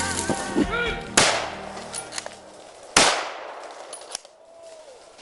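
Two gunshots from a hunter's long gun, nearly two seconds apart, each trailing off in an echo. Hunting dogs bark in the first second, before the shots.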